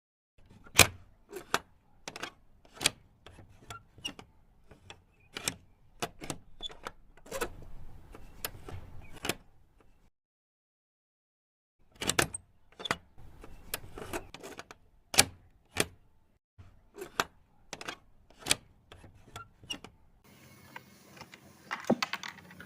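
Irregular sharp clicks and knocks of small hard parts and tools being handled, a few a second, stopping for about two seconds midway.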